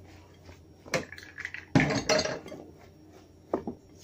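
Utensil clinking and knocking against a mixing bowl while ground pork meatball mixture is stirred: a sharp knock about a second in, a louder clatter near the middle, and a couple of light ticks near the end.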